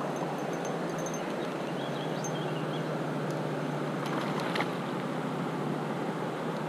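Steady rush of the fast-flowing river, with a faint low hum throughout, a few faint high chirps, and a couple of faint knocks about four seconds in.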